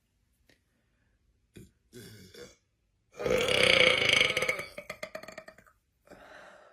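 A woman's long, loud burp, starting about three seconds in and lasting over two seconds, breaking up into a rattle as it tails off. Two short, quieter sounds come before it, and a brief quieter sound follows near the end.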